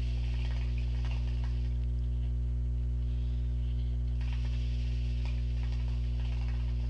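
Hookah being smoked: two long draws on the hose bubbling the water in the base, the first ending about two seconds in and the second starting about four seconds in. A steady electrical hum runs underneath and is the loudest sound.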